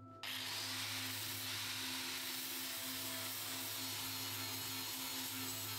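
Electric angle grinder grinding a forged steel block held in a vise: a steady hiss of the abrasive disc on the metal over the motor's constant hum. The disc is briefly off the work at the very start and bites back in a moment later.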